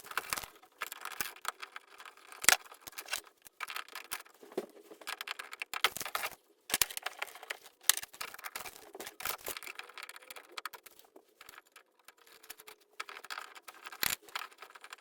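Hand work on a fire alarm pull station's wall-mounted back box: an uneven string of small clicks, scrapes and rattles as a screwdriver works at its screws and the box is worked loose, with two sharper clacks, about two and a half seconds in and near the end.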